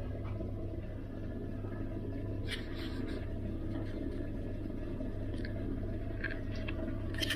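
Steady low hum of a ferry's machinery and air conditioning inside a cabin, with a few faint clicks of handling and a sharper click near the end.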